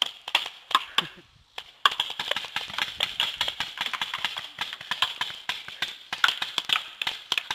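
Paintball markers firing in rapid strings of sharp pops, several shots a second, with scattered shots first and near-continuous fire from about two seconds in.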